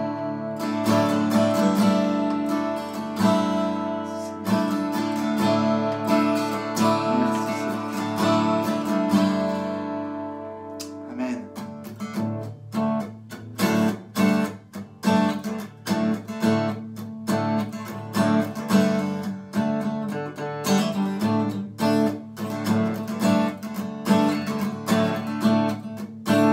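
Acoustic guitar strummed. The chords ring on and fade about ten seconds in. Then a new, regular strumming pattern starts a couple of seconds later, the intro to the next song.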